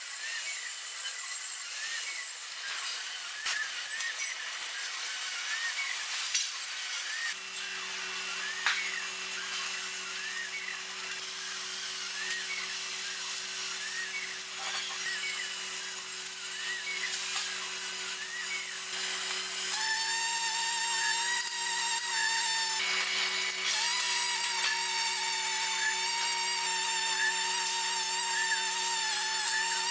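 MIG/MAG welding arc on steel pipe, crackling and hissing steadily. A steady low hum comes in about seven seconds in, and a wavering whine joins about twenty seconds in.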